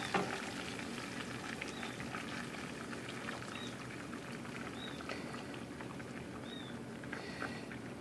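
Beaten egg poured into a hot stainless frying pan over fried beef and scallions, sizzling and crackling steadily. A light knock right at the start, and a few faint short high chirps in the second half.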